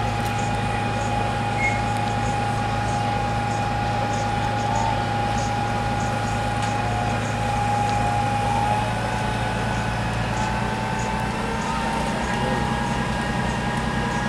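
Steady mechanical engine hum with a high whine that edges upward in pitch about ten seconds in.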